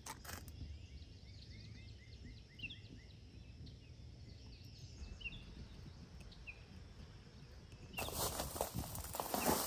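Small birds singing faintly, with runs of short repeated chirps. About eight seconds in, louder footsteps on gravel and rustling of leaves and branches begin.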